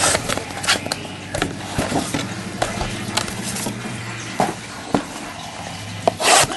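A cardboard trading-card box being opened and handled: rustling and scraping broken by several sharp taps and knocks, the loudest near the end.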